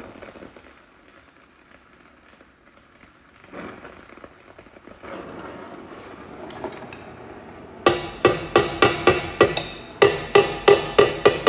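Hammer tapping on a steel motorcycle exhaust pipe to dress out its dents: two quick runs of sharp, ringing strikes, about five a second, starting about eight seconds in with a short pause between them.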